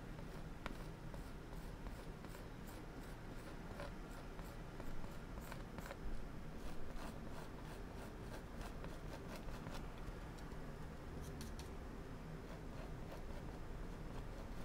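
Oil-paint brush working on a stretched canvas: a run of short, irregular scratchy strokes and dabs, busiest about a third of the way in and again near the end.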